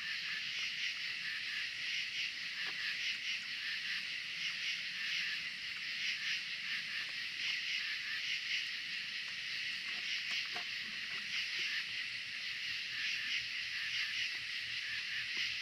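Steady chorus of night insects, a continuous high buzz, with a few faint clicks in the middle.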